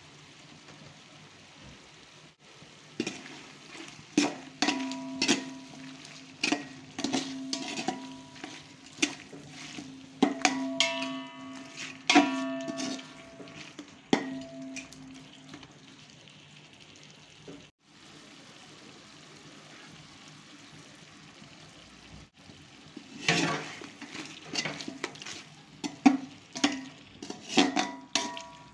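Metal spatula knocking and scraping against a metal cooking pot while stirring chicken masala, each knock leaving the pot ringing, over a soft sizzle. The stirring comes in two spells, with a quieter stretch of just sizzling in the middle.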